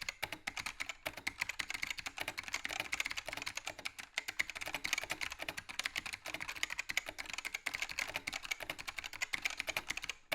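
Matias Mini Tactile Pro mechanical keyboard with clicky Alps-type switches being typed on quickly: a dense, continuous run of sharp key clicks.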